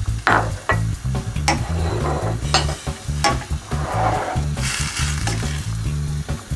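Minced meat and onions sizzling in a frying pan while a spoon stirs and scrapes through them in irregular strokes, over background music.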